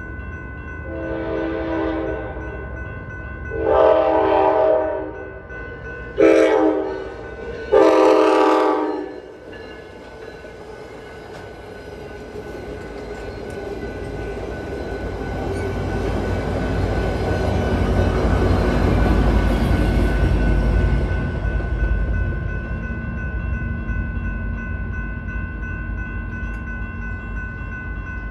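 A Nathan K5LA five-chime train horn sounds the grade-crossing pattern, long, long, short, long, over the ringing of the crossing bells. The train then rumbles past, loudest about two-thirds of the way through, and the horn starts again right at the end.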